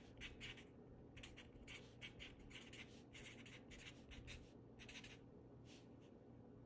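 Faint scratching of a felt-tip marker on paper as words are hand-written: an irregular run of short, quick strokes.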